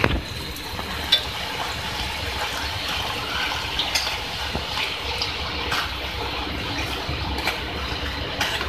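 Puri deep-frying in hot oil in a steel pan: a steady sizzle, with a few light clicks of the spatula against the pan as the puri is turned and pressed.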